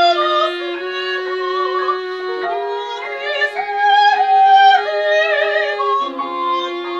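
A woman's classical singing voice with vibrato over long bowed cello notes, the cello moving to a new held note a few times, in contemporary chamber music.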